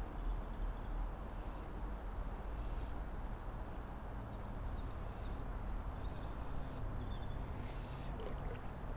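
Steady rush of flowing river water, with a few faint bird chirps over it around the middle and near the end.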